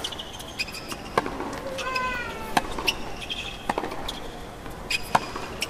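Tennis rally on a hard court: racket strikes on the ball a little over a second apart, with short high squeaks of tennis shoes on the court between the shots.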